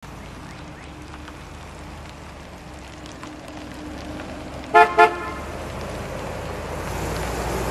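A car horn toots twice in quick succession about five seconds in, over the low, steady running of a 1957 Buick Roadmaster's 364 cubic inch V8. The engine grows louder near the end as the car drives up.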